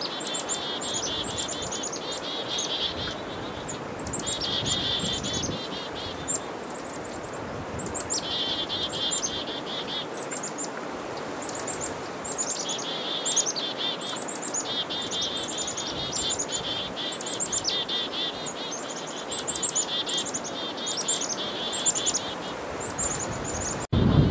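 Black-capped chickadees giving chick-a-dee mobbing calls over and over at a northern pygmy-owl. Each call is a few high, falling notes followed by a run of buzzy dee notes. Wind rumble on the microphone cuts in right at the end.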